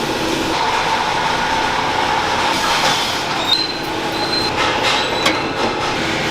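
Steady mechanical shop hum with a few light metallic clinks and brief high squeaks about three and a half to four and a half seconds in, as an exhaust muffler chamber is hung on its lubricated rubber hangers and clamped.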